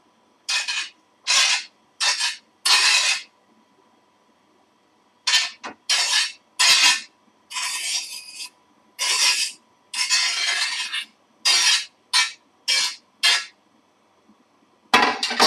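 A spoon scraping pineapple pieces out of a bowl into a pan of boiling sauce: a run of short, separate scrapes with a pause of about a second and a half around four seconds in.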